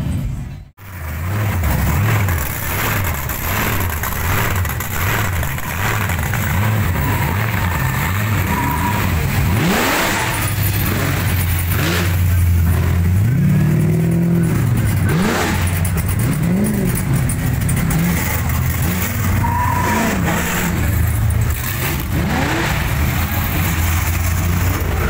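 Big muscle-car engines, among them a supercharged one, idling with a lumpy rumble as the cars cruise slowly past. Several short revs rise and fall in the middle.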